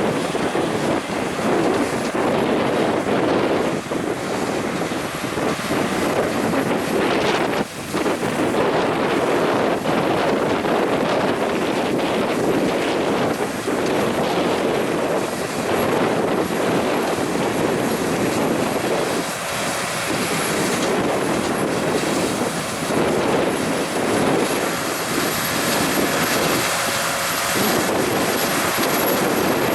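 Heavy farm harvest machinery running steadily, a dense even engine and machine noise with no break.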